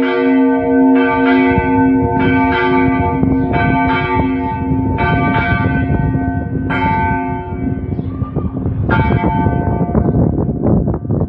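Bronze church bell in a tower struck by its clapper, about seven strokes a second or more apart, each ringing on. The strokes slow and thin out, with a last one near the end, while a rough low rumble builds underneath.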